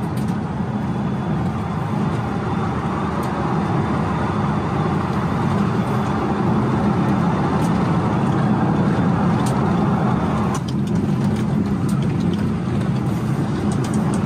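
Cabin noise of a Tesla-powered 1970s muscle car driving fast on a race track: steady tyre and road rumble with wind. About ten and a half seconds in, the higher part of the noise drops off.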